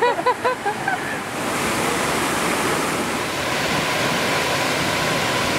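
Small creek waterfall pouring steadily into a swimming pool, a continuous rushing of water. A swimmer gives a few short cries in the cold water during the first second.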